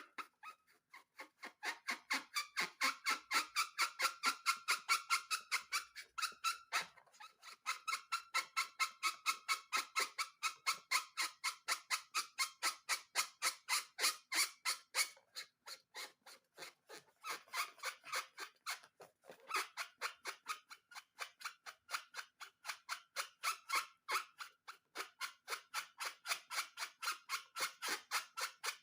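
A fast, even run of squeaky rubbing strokes, about four a second, that pauses briefly about a quarter of the way in and again around halfway.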